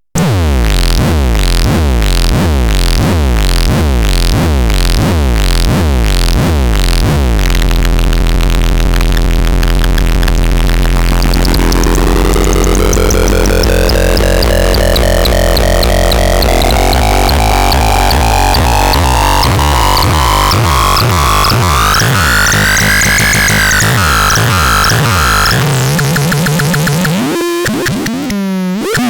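Electronic synthesizer: about two pulsing, downward-sweeping beats a second for the first seven seconds, then a steady low drone under a tone that glides slowly upward in pitch, ending in fast sweeps up and down.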